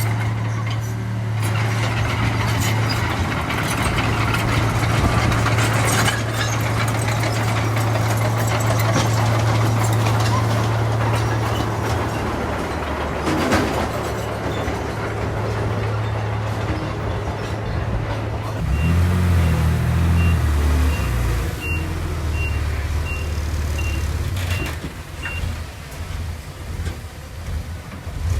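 Heavy diesel engine of earthmoving machinery running steadily, its note changing about two-thirds of the way through. A reversing alarm then beeps evenly, about twice a second, for several seconds.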